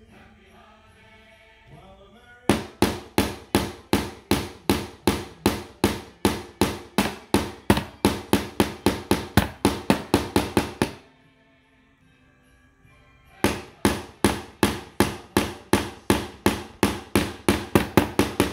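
Claw hammer driving small nails through a thin board into pine, struck rapidly at about three blows a second in two long runs with a pause of about two seconds between them.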